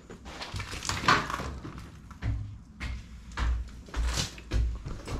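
Footsteps climbing a flight of stairs: a steady series of heavy thuds, about one every half second or so, with scuffing between them.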